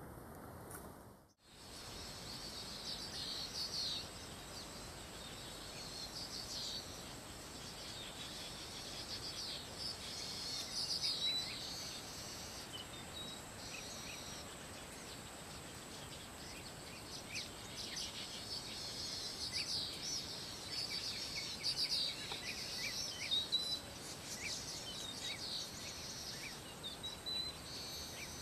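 Swamp-edge ambience: birds chirping and calling in bursts, with short rising whistles, over insect calls and a steady thin high tone.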